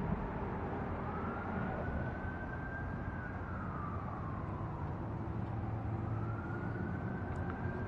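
A siren wailing slowly up and down, rising and falling about twice, over a steady low rumble.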